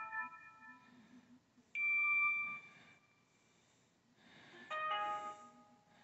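Built-in ringtone previews playing through a BlackBerry Curve 8530's speaker as the ringtone list is scrolled. The tail of one chime dies away, then two short chime tones start sharply a few seconds apart, each lasting about a second.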